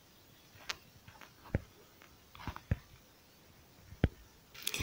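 Quiet room tone with a handful of faint, scattered clicks, about five over the few seconds.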